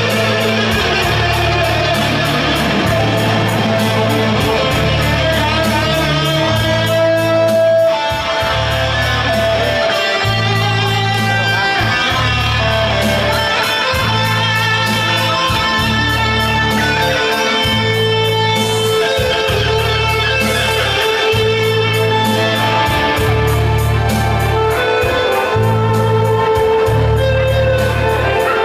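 Live band music during a sound check: an amplified plucked-string melody over a bass line of held notes, each about a second long with short gaps between them.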